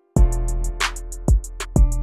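Background music: after a brief silence, a track starts with a steady drum beat of deep kicks and rapid high ticks under sustained pitched notes.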